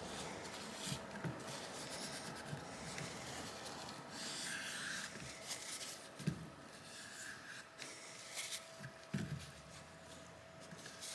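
Scraping and rubbing of a tool over the phone's frame, clearing leftover glass and adhesive. It eases off after about halfway, leaving a few light taps.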